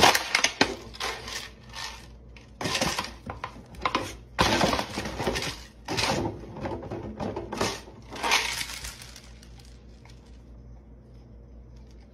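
A plastic-bottle treat dispenser spinning on a rod as a dog bats it with its paw, crinkling and clattering with dry kibble inside in a series of bursts. After about nine seconds it goes much quieter, with only a few faint ticks.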